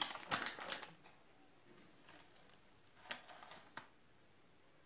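A metal spoon scraping and clinking as ground dibek coffee is scooped and tipped into a stainless steel cezve: a cluster of short scrapes and clicks in the first second, then a few more about three seconds in.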